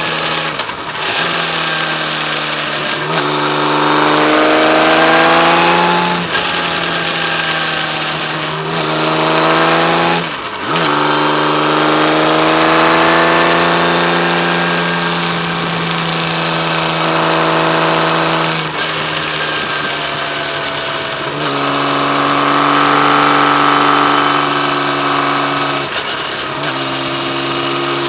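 Kawasaki Z1300's inline-six engine pulling hard under acceleration, its pitch climbing and then dropping with each gear change, about half a dozen times.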